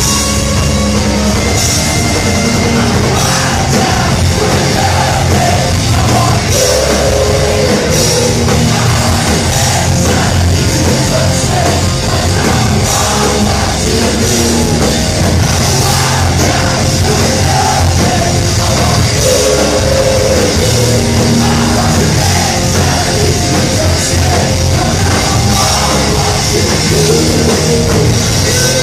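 Heavy metal band playing live and loud: distorted electric guitars, bass guitar and a drum kit.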